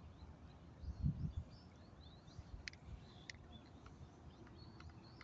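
Small birds chirping at intervals over faint outdoor background noise, with a brief low rumble about a second in.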